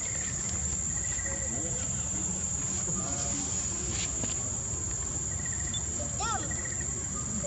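Steady high-pitched insect chorus, with short chirping trills now and then and a brief rising squeak about six seconds in.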